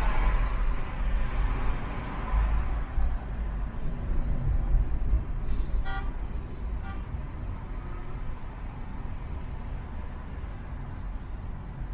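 Car road noise in city traffic, a steady low rumble with tyre hiss that eases after the first few seconds. A vehicle horn gives a short toot about six seconds in, with a fainter second toot a second later.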